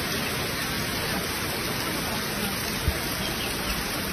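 Steady rushing noise of a flooded, fast-flowing river, with a brief thump about three seconds in.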